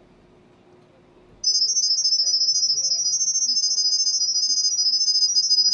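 Smartphone speaker playing an IP camera app's sound-wave Wi-Fi pairing signal: a rapid, high-pitched warble of tones flicking between a few pitches, starting about a second and a half in. The phone is sending the network name and password to the camera as sound.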